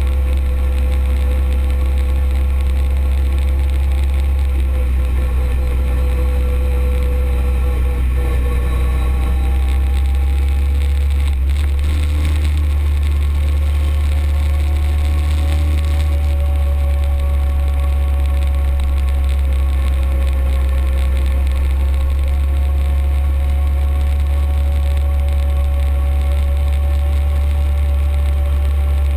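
Arctic Cat UTV engine running steadily under way, its drone drifting slowly up and down in pitch over a heavy, constant low rumble.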